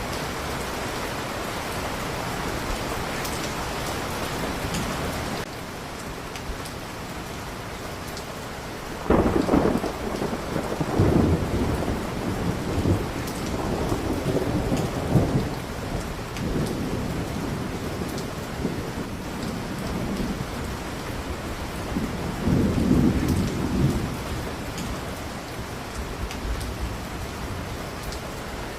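Steady heavy rain with rolling thunder. Long rumbling peals come about nine seconds in and again near the end of the second third.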